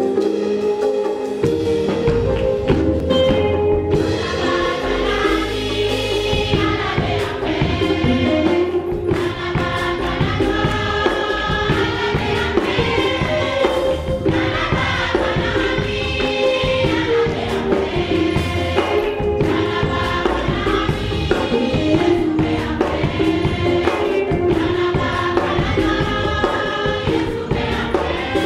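A church choir, mostly women, singing a Bambara gospel song in harmony, with a steady percussion beat.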